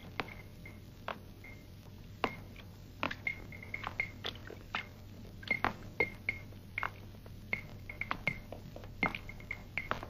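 Scattered sharp clicks and clinks of bowls and utensils as hủ tiếu noodle soup is dished up, with short high chirps repeating in between over a low hum.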